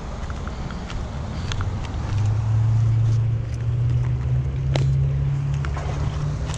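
A motor vehicle's engine hum that gets louder about two seconds in and rises slightly in pitch, with a few faint clicks.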